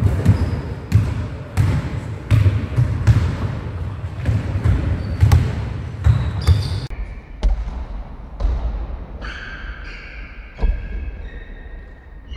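Basketballs bouncing on a hard sports-hall floor, a run of sharp echoing thuds that is dense for the first half and thins out after about seven seconds. Several high squeaks, typical of trainers on the court, come near the end.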